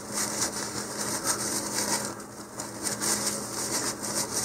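Irregular rustling and scraping, like hands handling paper or materials out of sight, over a steady low electrical hum.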